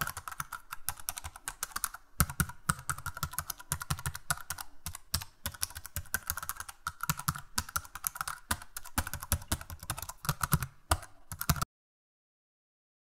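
Computer keyboard typing sound effect: a rapid, irregular run of key clicks that stops abruptly near the end.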